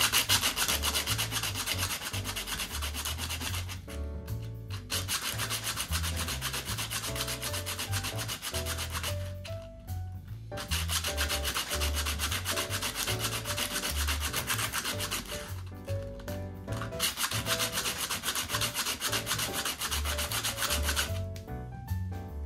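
Aluminium step-up ring rubbed back and forth on coarse 120-grit sandpaper wrapped around a wooden block, grinding down its threaded camera-mount lip. It makes rapid, scratchy strokes in runs of several seconds, broken by four brief pauses.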